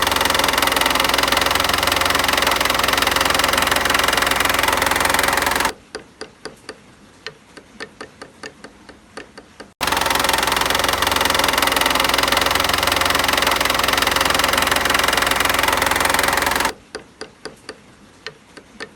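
Mercedes M111 Kompressor four-cylinder engine running with a loud, dense knocking rattle under the bonnet that suddenly drops to a quiet idle with light regular ticks, about three a second; the pattern happens twice. The knock comes under load at low revs and was traced to a stretched supercharger belt letting the belt tensioner strike its housing at the end of its travel.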